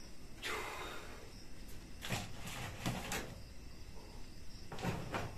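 A plastic basket being handled on a brick ledge: a few short scrapes and rustles spread over several seconds.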